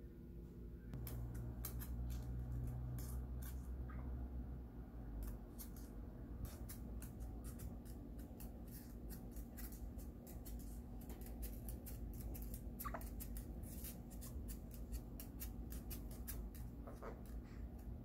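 A Cuban Amazon parrot's claws ticking on a hard desktop as it walks, an irregular patter of light clicks several times a second. A low hum sits under the first few seconds.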